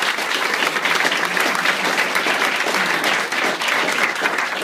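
A roomful of people applauding, dense steady clapping.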